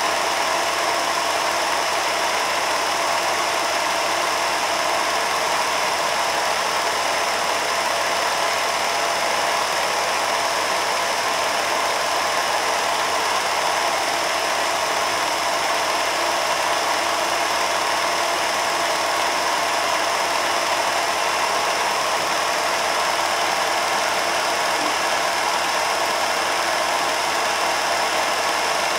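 Film projector running steadily, a constant mechanical whir that stays even throughout.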